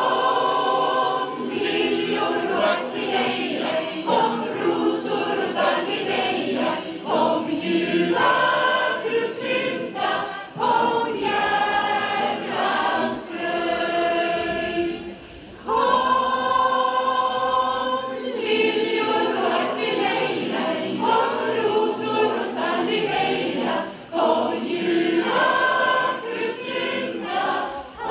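Mixed choir of children and adults singing together in Swedish. The phrases break briefly about halfway through and again near the end.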